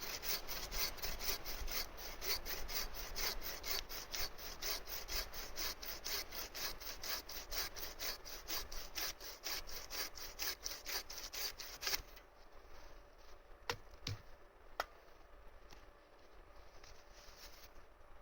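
Hand saw cutting through wood in quick, even strokes, about five a second, stopping about twelve seconds in. A few light clicks follow.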